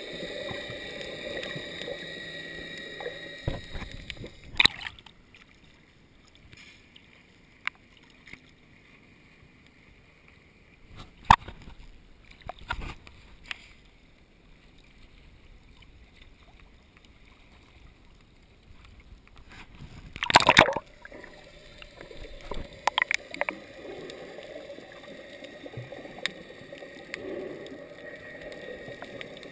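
Underwater sound as heard by an action camera in its waterproof housing: a steady hum with a few held tones, which drops away after about four seconds as the camera comes up, leaving knocks against the housing. About twenty seconds in comes a loud splash, after which the underwater hum returns.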